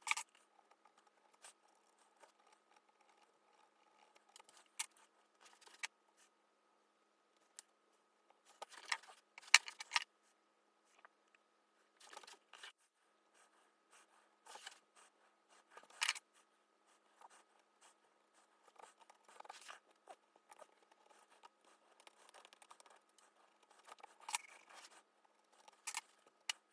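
Hand carving tool cutting into wood: short, sharp slicing and scraping strokes as chips are pared away, coming in scattered bursts with louder clusters around 9–10 seconds, at 16 seconds and near the end. A faint steady high hum runs underneath.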